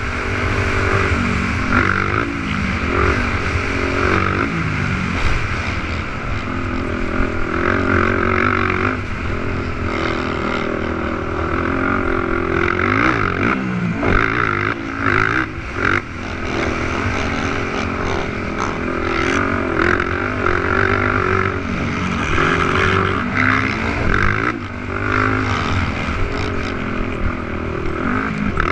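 Several 450cc racing ATV engines revving hard on a motocross track, their pitch rising and falling repeatedly as the quads accelerate and back off, over a continuous engine drone.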